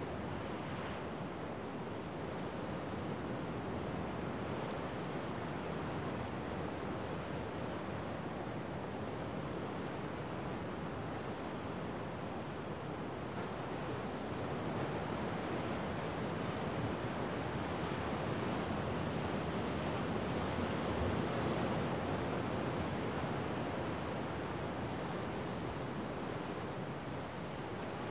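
Rough winter sea breaking over a rocky shore: a continuous wash of surf that swells louder around the middle.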